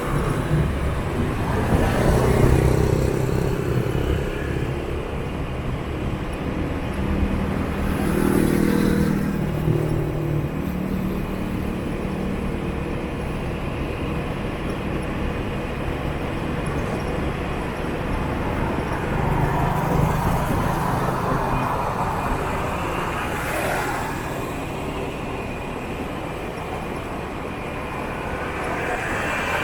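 Motorbike traffic heard from a moving scooter: steady engine and road noise, with nearby motorbikes swelling louder and passing about three times.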